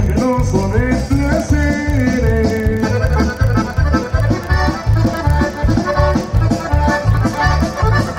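Live norteño band music: accordion carrying the melody over a steady, even bass beat.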